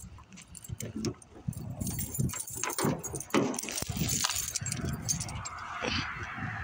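A bunch of car keys jangling and clinking in a hand, in quick irregular jingles that grow louder and busier a couple of seconds in.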